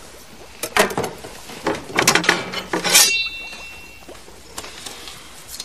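A few sharp metallic knocks and clatters, then a louder metal clang about three seconds in that rings on and fades.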